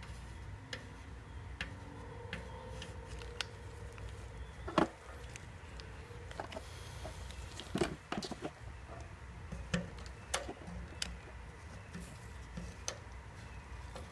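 Irregular light taps and clicks of soldering work on a tin-can patch on a motorcycle's steel fuel tank, with a sharper knock about five seconds in and another near eight seconds, over a low steady hum.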